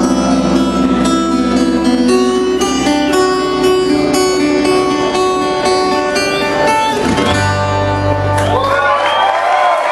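Live rock band playing, with electric and acoustic guitars holding sustained notes over a low bass line and bending notes near the end.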